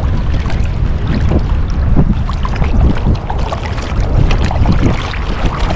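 Wind buffeting the microphone with a heavy, steady low rumble, over water lapping and slapping against a float tube.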